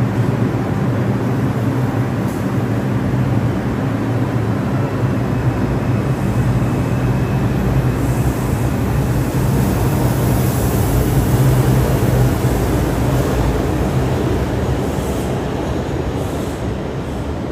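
An R142-family New York subway train running between stations: a steady rumble of wheels on rail with a low motor hum. It builds a little to its loudest about two-thirds of the way through, then eases off near the end.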